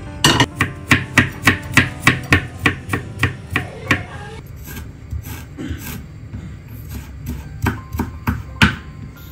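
Santoku knife chopping garlic and ginger on a bamboo cutting board: a quick, even run of knocks, about four a second, for the first four seconds, then a few scattered chops near the end.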